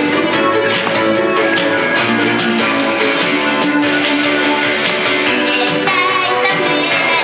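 Upbeat J-pop backing track with guitar over a steady beat; the ticking of the beat drops out about five seconds in, and a woman's singing voice joins near the end.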